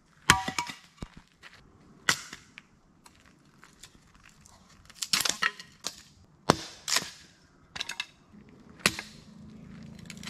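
About seven sharp knocks and clacks at uneven intervals, the first the loudest. A low steady hum comes in near the end.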